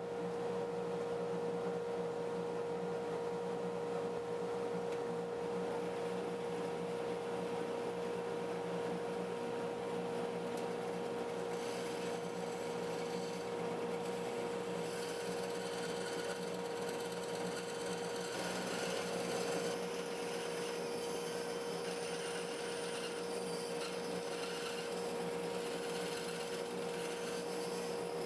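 A stationary woodworking power tool runs steadily while shaping the ends of a plywood insert, a constant motor hum under the hiss of the wood being worked. The hiss grows brighter about twelve seconds in.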